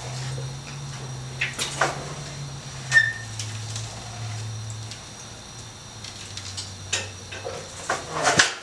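Homemade angle-iron sheet metal brake being heaved on by hand to bend a long sheet of 5052 aluminum into channel: scattered knocks and clanks of steel and sheet metal, the sharpest about three seconds in with a brief ring, and a cluster near the end, over a low steady hum. It is a hard bend; the brake is fighting it.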